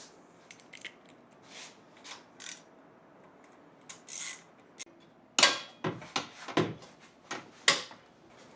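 Steel Jeep tube door being handled and set onto its hinges. Light scrapes and clicks at first, then, past halfway, a run of sharp metal clanks as the hinge parts knock together.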